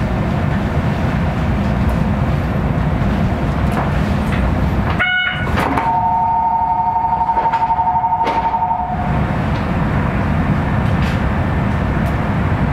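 Kitakyushu Monorail car running, a steady rumble of the rubber-tyred straddle-beam train. About halfway, a two-note tone sounds for about three seconds.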